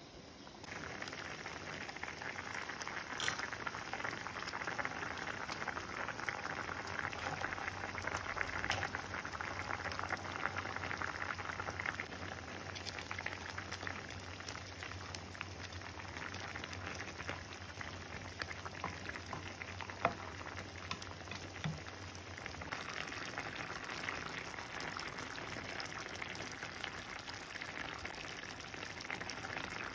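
Eggplant and hilsa fish curry simmering in a pan: a steady dense bubbling with fine sizzling pops. A low hum underneath stops about two-thirds of the way through.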